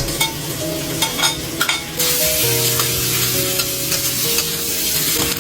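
A utensil clicking a few times against a pan, then from about two seconds in a steady sizzle of food frying.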